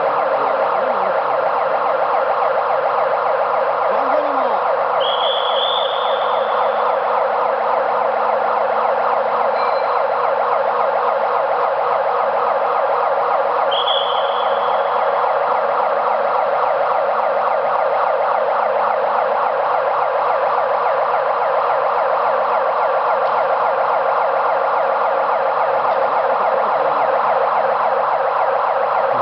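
A continuous, steady siren-like warning alarm, typical of an overhead crane's audible signal while it is operating under load, with a fast warble and no change in level. Two brief faint high chirps sound over it, about five seconds in and again about fourteen seconds in.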